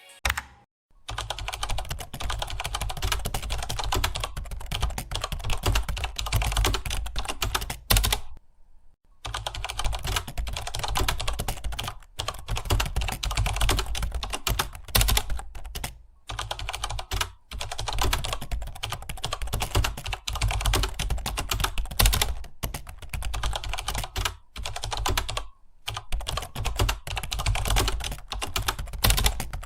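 Fast, continuous typing on a computer keyboard: a dense stream of key clicks. It breaks off briefly a few times, with the longest pause, about a second, around eight seconds in.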